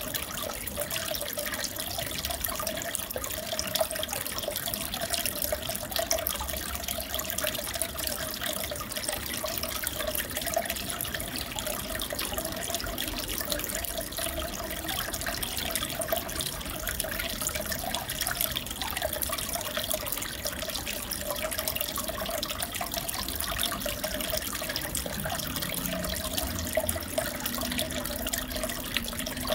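Aquarium water trickling and bubbling steadily, with a steady hum underneath.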